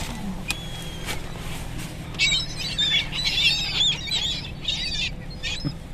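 A flock of gulls calling: many overlapping high calls start about two seconds in and go on for about three seconds, over a low steady hum.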